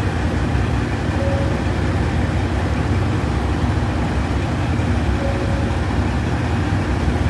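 Diesel railcars idling at a station platform, a steady low engine rumble.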